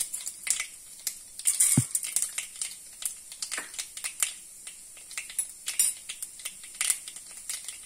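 Tempering spluttering in hot oil in a kadai: mustard seeds and dal crackling with irregular sharp pops. One louder knock comes a little under two seconds in.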